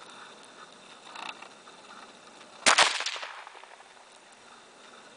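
A single rifle shot about two and a half seconds in: one sharp crack with a short echoing tail that dies away within a second.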